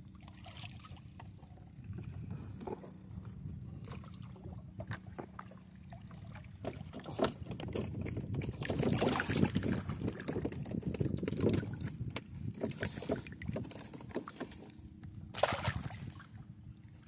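Water sloshing and splashing around a person wading chest-deep while hauling and handling a gill net, an irregular run of small splashes that grows busiest and loudest in the middle, with one sharp splash near the end.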